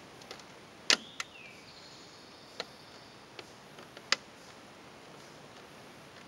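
European licence plate snapping into the plastic clips of a bumper-mounted plate holder: a series of sharp clicks, about five in three seconds, the loudest about a second in and just after four seconds, as the plate seats in its clips.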